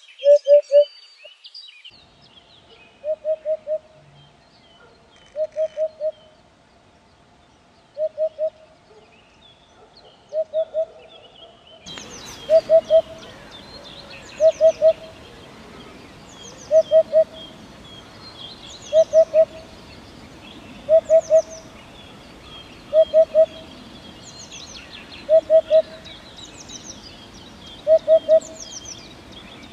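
A bird repeating a low hooting call of three or four quick notes, a group about every two seconds. About twelve seconds in, a second bird's higher chirps join it over a noisier background.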